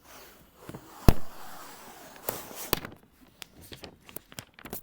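Cardboard iPad box being opened by hand: a sharp snap about a second in, then rustling and a run of small clicks and taps as the packaging is handled.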